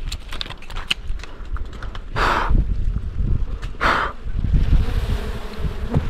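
Two short, hard exhalations of breath about a second and a half apart, over rustling, small clicks and low rumble from the microphone being handled.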